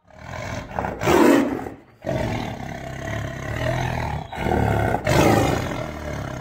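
Tiger roar sound effect: a loud roar with growling that peaks about a second in, runs on, then swells again about five seconds in before fading.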